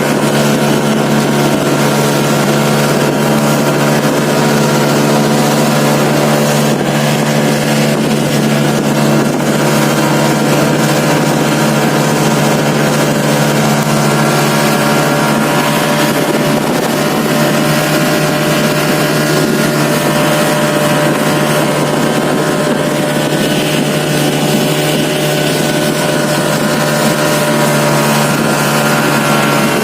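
A boat's engine running steadily at an even speed, a constant drone with no change in pitch.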